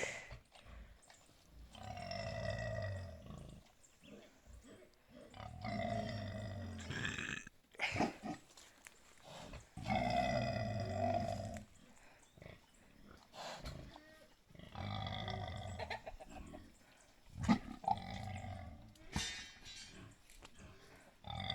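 Boar grunting while mounting and mating a sow: long, repeated grunts, about five of them, each lasting a second or more and coming roughly every four seconds.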